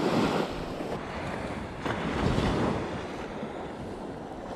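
Small surf breaking and washing up the beach, with wind buffeting the microphone; the wash swells twice, at the start and again around two seconds in.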